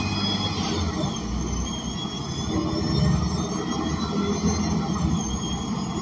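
Interior of an ENC Axess city bus under way: its Cummins Westport L9N natural-gas inline-six and Voith automatic transmission running with steady road rumble, and faint high whines that rise and fall.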